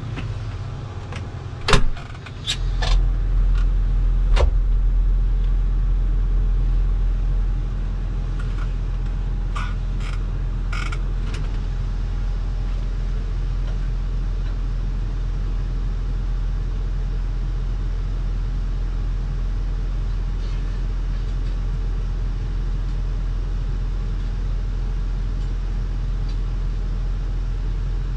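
Komatsu 901 forest harvester's diesel engine idling steadily, heard from the cab, with the harvester stopped. The hum grows louder about two and a half seconds in; a few sharp clicks and knocks come in the first few seconds, and a short run of light metallic clicks about ten seconds in.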